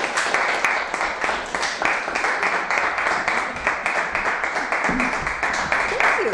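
A small audience applauding with steady, dense clapping; a voice or two is heard briefly near the end.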